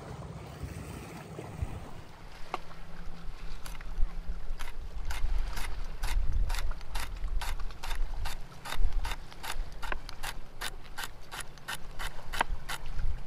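Low wind rumble with faint lapping water at first. Then, a few seconds in, a knife chops on a wooden cutting board in steady strokes, about two a second and quickening to about three a second.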